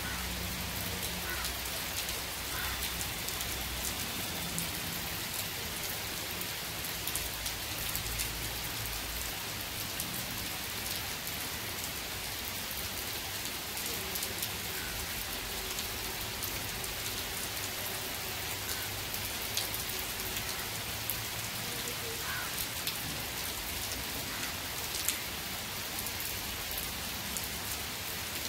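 Heavy monsoon rain falling steadily on a cement road and the wet grass and shrubs beside it: a dense, even hiss with the sharper ticks of single drops striking the surface.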